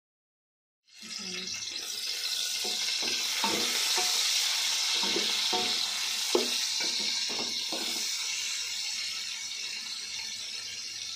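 Sliced onions sizzling in hot oil in a metal pot, starting about a second in. A wooden spoon stirs them, with short scrapes and knocks against the pot, one sharper knock about six seconds in.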